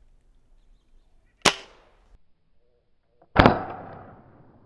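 Pellet air rifle firing: two sharp cracks about two seconds apart, the second louder and trailing off over about a second.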